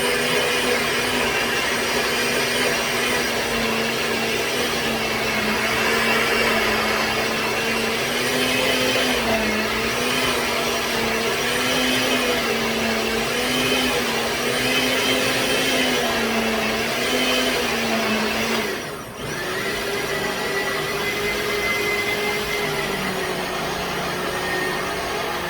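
Electric blender running, blending plantain with water into a purée. Its motor hum wavers in pitch about once a second as the load churns. About nineteen seconds in, it dips briefly and then carries on at a different, steady pitch.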